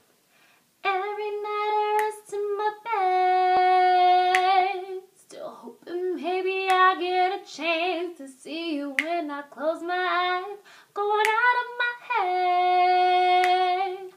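A young woman singing solo a cappella in an R&B style: after about a second of quiet she holds two long notes and moves between them in quick vocal runs.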